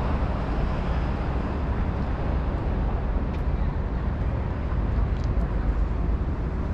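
Steady city traffic noise, a continuous low rumble with a few faint clicks.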